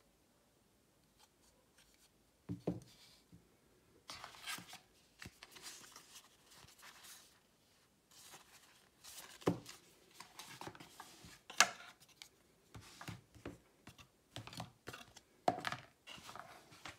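Hands handling the contents of a smartphone box: paper leaflets and packaging rustling and crinkling in irregular swishes, with a few sharp knocks of objects against the table.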